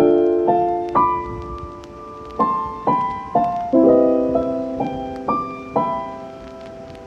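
Background music: soft piano playing a slow sequence of chords and single notes, each note ringing and fading, dying away near the end.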